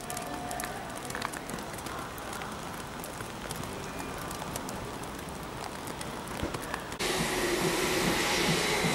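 Steady station background with faint scattered ticks. About seven seconds in it gives way to the louder, dense hiss of steam escaping from the German class 50 steam locomotive BR 50 3673, with a low uneven pulsing under it.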